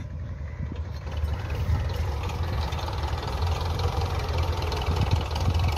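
Belarus 510 tractor's diesel engine running steadily as it pulls a potato planter through the field.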